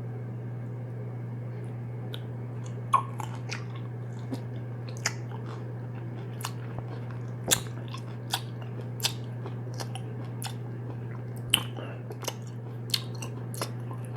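Close-miked mouth sounds of someone eating a mini chocolate cupcake: scattered wet clicks and smacks of biting and chewing, a few sharper than the rest, over a steady low hum.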